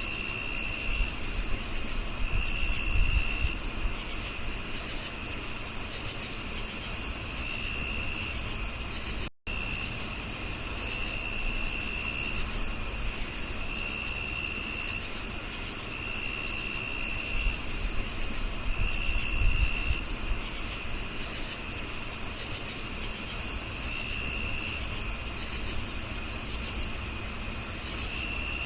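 A chorus of crickets: a steady high trill under rhythmic chirps at about three a second, with shorter trills coming and going about every two seconds. The sound cuts out for an instant about a third of the way through.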